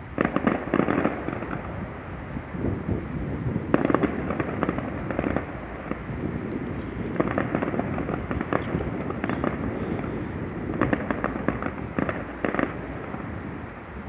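Fireworks display going off: volleys of bangs and crackles in four clusters a few seconds apart, with a low rumble between them.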